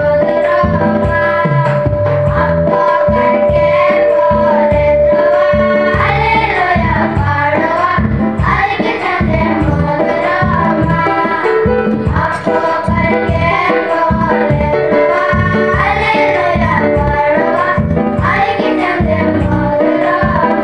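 A group of boys singing a Malto-language song together over instrumental accompaniment with a steady, regular beat and a held keyboard-like tone.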